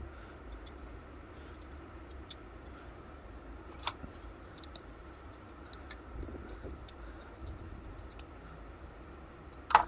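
Scattered light metallic clicks and taps from small steel pistol parts being handled and a screwdriver being worked into the pistol's frame, with a louder, sharp click just before the end.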